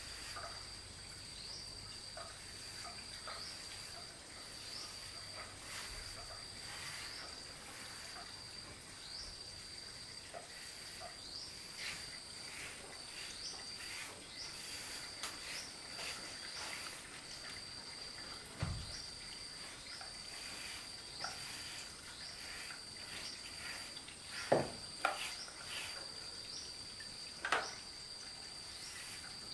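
Insects chirring steadily at a high pitch, with a short rising chirp repeating about every second and a half. A few faint short knocks and scrapes sound through it, louder ones about 25 and 27 seconds in.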